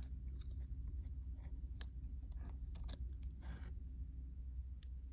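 Quiet eating sounds as a bite of takoyaki is taken and chewed, with scattered light clicks from a utensil and takeout container, over a steady low hum inside the car.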